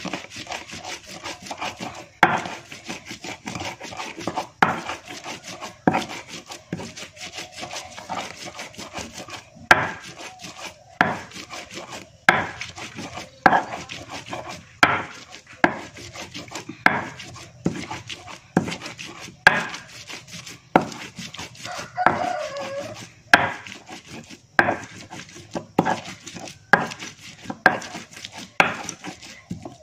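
Chili and andaliman pepper being ground with a stone pestle in a stone mortar: a knock about once a second as the pestle strikes, with rough grinding scrapes between the strokes.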